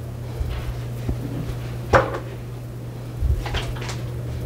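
Handling noise: a few light knocks and clicks of things being moved about, the loudest about two seconds in and a short cluster of clicks near the end, over a steady low hum.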